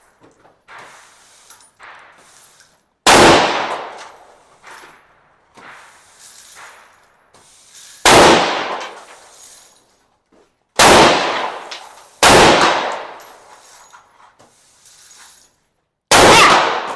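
Scoped rifle fired five times at an uneven, unhurried pace, each shot sharp and loud with a long echoing tail. Fainter, more distant gunshots sound in between.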